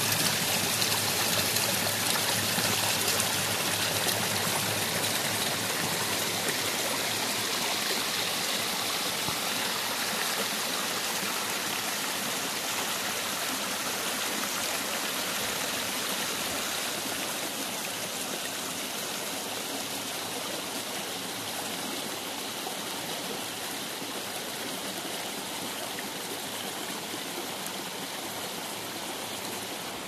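Small rocky stream rushing and splashing over stones, with water pouring down a little cascade into a pool. The rush is steady and slowly grows quieter.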